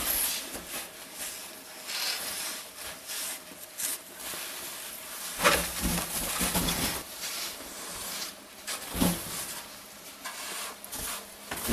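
Hand-pushed metal-frame snow scrapers cutting through and shoving deep packed snow, with uneven crunching and scraping. Two louder knocks come about five and a half and nine seconds in.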